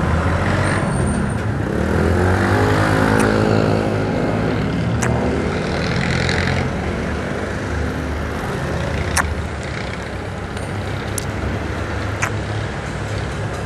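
Motorcycle engine running under way, heard from the rider's seat with wind noise on the microphone. The engine note shifts in pitch a couple of seconds in, and a few sharp clicks come through later on.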